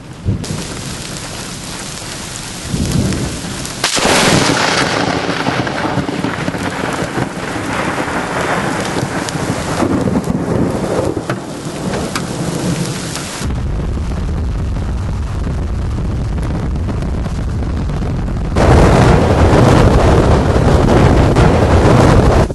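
Heavy rain falling in a severe thunderstorm, with thunder. The sound jumps abruptly louder about four seconds in and again a few seconds before the end.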